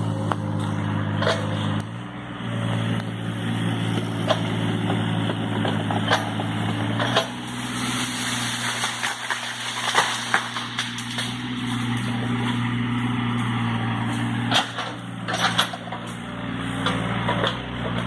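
Takeuchi TB135 mini excavator's diesel engine running under load, its note shifting as it works, around seven seconds in and again near fifteen. Sharp cracks and knocks come through over it.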